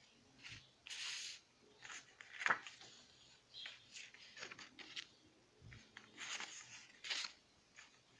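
Printed paper cards rustling and sliding against each other as they are picked up and laid onto a pile by hand, in short irregular scrapes.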